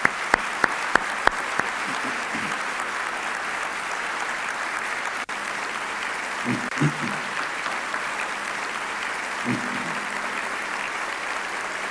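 An audience applauding steadily, with a few sharp hand claps close to the podium microphone in the first second or two.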